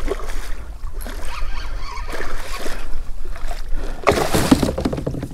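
Hooked red drum (redfish) thrashing and splashing at the water's surface beside a kayak, with the biggest splash about four seconds in.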